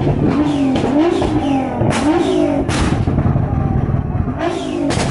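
Modified Nissan GT-R twin-turbo V6 engines revved in repeated quick blips, each rev rising and dropping back, with loud exhaust bangs from backfire three times. The revving eases off about three seconds in, then comes back with a last rev and bang near the end.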